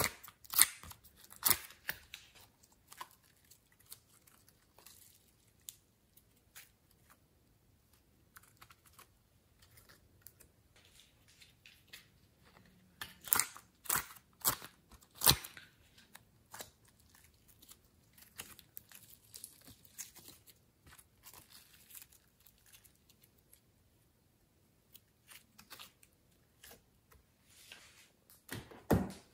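Soft clay slime being peeled and pried out of a plastic container: sharp, sticky clicks and crackles come in a few short clusters, with quiet stretches between.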